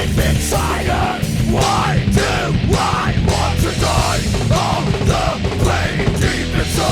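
Heavy metal band playing an instrumental passage: distorted electric guitars, bass and drums, in a raw, unmixed and unmastered studio recording.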